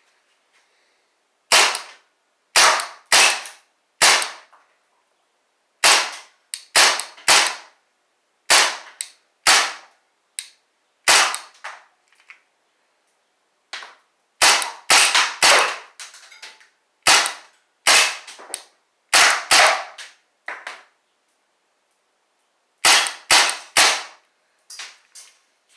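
Tokyo Marui M9 full-metal gas blowback airsoft pistol firing about two dozen sharp shots, each a crisp pop with the slide cycling. The shots come in quick groups of two to four, with short pauses between the groups.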